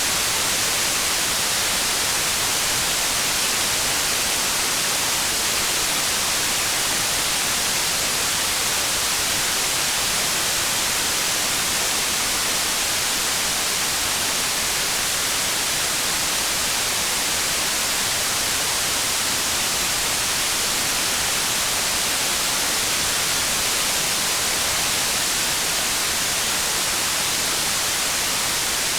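Rain falling, a steady even hiss with no separate drops or changes in level.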